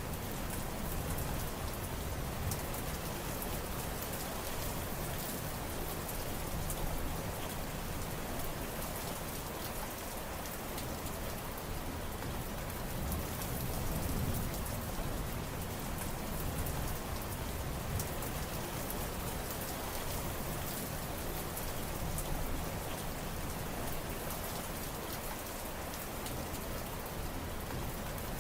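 Steady heavy rain, a dense even hiss made of countless separate drop hits.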